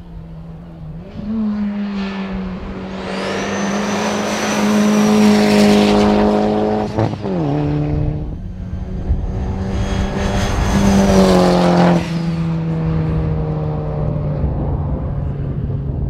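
1991 Mazda Familia GTR rally car's turbocharged four-cylinder engine running hard at high revs as the car drives past. About seven seconds in the revs fall sharply and climb back, and the sound swells twice as the car comes closest.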